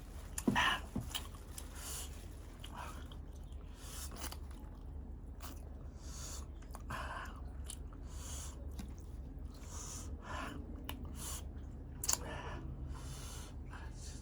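Close-up chewing and biting of balut, the boiled duck embryo in its egg, in irregular wet mouth sounds. There is a louder sharp bite about half a second in and another about twelve seconds in.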